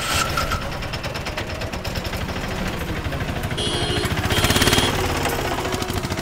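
Road traffic with a rapid, rattling engine running, growing louder about four seconds in as a high whine joins.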